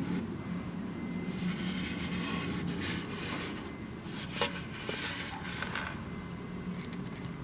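Hard polycarbonate water bottle handled and turned in the hand, its plastic rubbing and scraping in patches, with one sharp click about four seconds in, over a steady low car hum.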